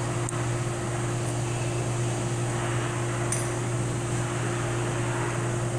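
Steady machine hum, a low drone with a steady higher tone over an even hiss, as of a running fan, with a couple of faint light ticks.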